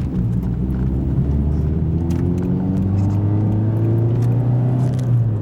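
Mitsubishi Colt's engine pulling the car along, heard from inside the cabin, its pitch slowly rising as it gains revs, then dropping abruptly near the end.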